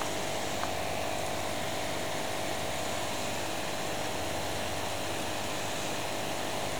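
Aquarium pump running: a steady hum and hiss with a constant mid-pitched tone.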